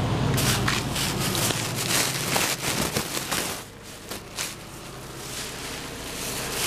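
Plastic trash bags rustling and crinkling as they are handled and pulled about, a rapid irregular crackle that eases off about halfway through. A low steady hum runs underneath for the first couple of seconds.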